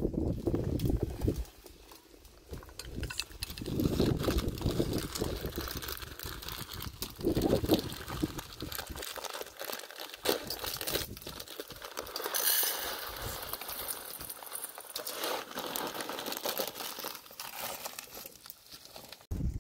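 A plastic food packet crinkling as it is handled and torn open, and small dry pulses rattling into a metal bowl, with scattered clinks and handling knocks throughout.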